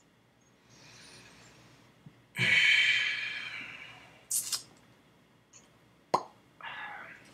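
A person shifting about in a chair. About two seconds in comes a sudden loud breathy hiss that fades over a second or so, then a few sharp clicks and a short rustle.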